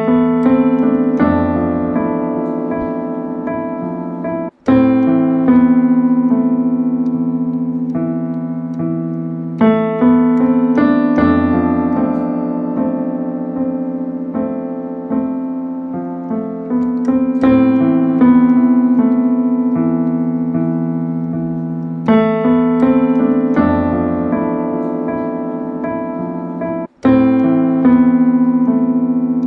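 Instrumental music on a piano-like keyboard: slow chords, each struck and left to fade, over a steady low note. The sound cuts out for an instant twice, about four and a half seconds in and near the end.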